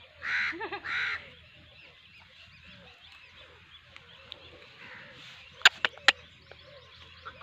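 Two harsh crow caws about half a second apart near the start, over a faint steady chorus of croaking frogs after rain. About six seconds in, three or four sharp clicks or knocks come in quick succession.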